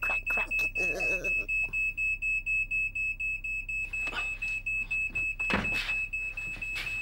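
Smoke alarm beeping in a rapid, even pulse of one high steady pitch, about three beeps a second, set off by smoke. Some thuds come in about four seconds in.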